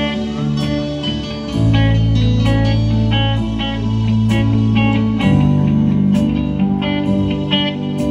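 A band playing, led by guitar over held bass notes that change every second or two.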